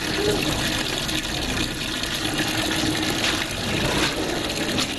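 Water running steadily from an outdoor standpipe tap into a plastic bucket.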